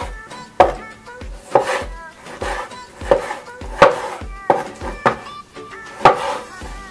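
Chef's knife cutting a tomato into chunks on a wooden cutting board, the blade knocking on the board about once a second, with background music.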